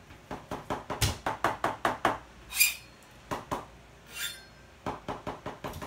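A wooden interior door is handled and shut, with a thud about a second in amid a rapid run of clicks and taps. Two short hissing sounds follow, then more clicking near the end.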